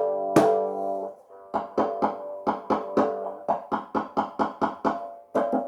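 Piezo-pickup cigar box resonator guitar through a small amp: a strummed chord rings out and dies away, then a quick rhythmic run of sharp percussive taps on the guitar, about four a second, comes through the pickup like a drum. Near the end the chords are strummed again.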